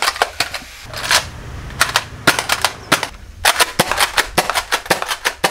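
Toy foam-dart blasters firing: a string of sharp snapping shots in quick runs, with two short pauses in the first half and a dense rapid burst in the second half.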